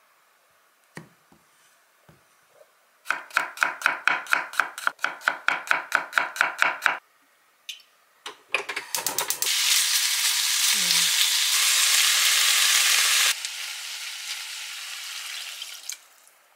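A spice mill is twisted in rapid, even strokes, about five a second, for some four seconds. A few seconds later comes loud sizzling as water is poured into a hot cast-iron pot of frying rice and sausage. The sizzling drops sharply after about four seconds and goes on more softly, fading near the end.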